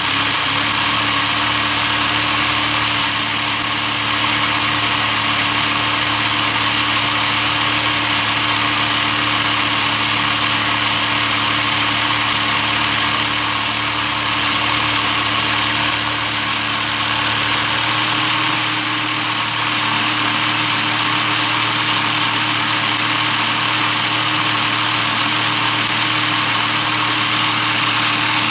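Motorized LEGO model of a Toyota 4A-GE engine running: the electric motor turning the crank, the 2x2 LEGO pistons and the timing belt, a steady mechanical whir that holds an even speed throughout.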